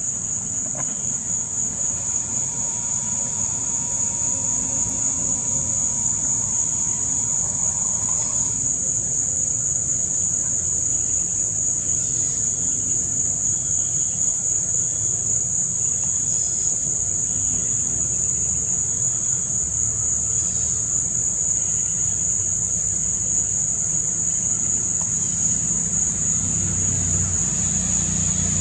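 A dense chorus of insects shrilling steadily, a continuous high-pitched drone over a faint low rumble.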